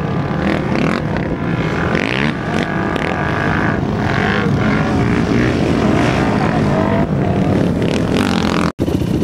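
Several Kawasaki KFX700 quads' V-twin engines running hard at high revs as they race up a sand dune, the pitch rising and falling as they shift and climb. The sound cuts out for an instant near the end.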